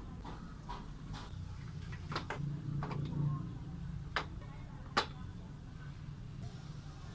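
Irregular sharp clicks and knocks, about eight spread over several seconds with the loudest about five seconds in, from equipment being handled and connected for an amplifier sound check, over a low steady hum.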